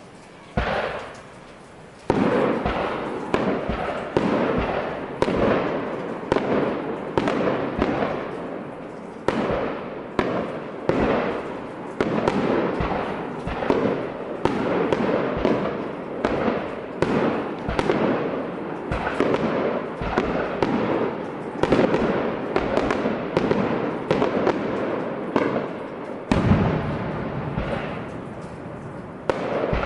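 Fireworks display: a single bang about half a second in, then shells bursting in quick succession, many bangs overlapping into a continuous barrage, each trailing into a rumbling echo. The barrage eases briefly near the end before another volley of bangs.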